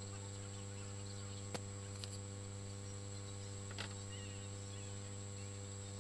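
Steady electrical hum with a thin high whine, broken by two sharp clicks and a short clatter about two thirds in as a spring-loaded desoldering pump is handled and set down on the workbench.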